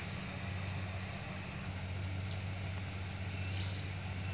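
Yanmar combine harvester running steadily as it harvests rice, a constant low engine drone.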